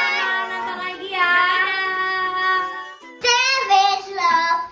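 Singing with long held notes, then, after an abrupt cut about three seconds in, a young girl singing.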